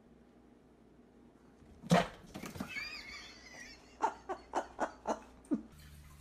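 An animal call: after a quiet start, a sudden loud sound about two seconds in, then a wavering high-pitched call and a string of five short sharp knocks.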